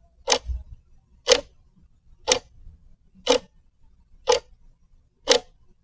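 Clock ticking, one sharp tick each second, evenly spaced.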